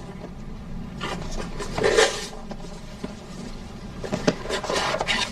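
Rustling and rubbing of gift packaging being handled, in a few short bursts.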